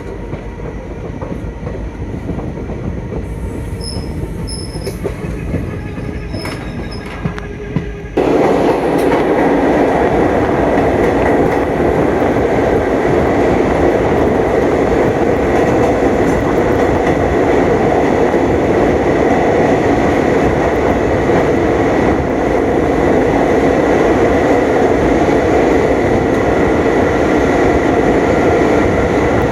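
Passenger train running on the track, a steady rumble of wheels and rails. About eight seconds in the noise jumps suddenly much louder and stays loud.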